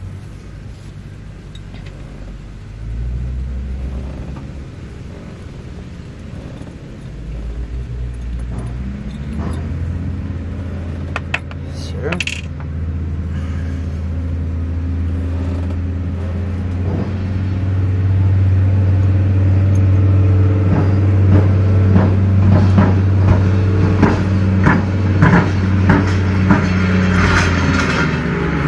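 Small metallic clicks and ticks of hand tools working a cable fitting, coming thick and fast in the second half, over a low steady engine-like hum that grows louder.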